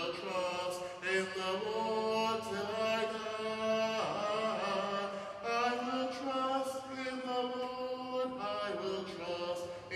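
A single man's voice singing a slow, chant-like melody, holding long notes and gliding between them.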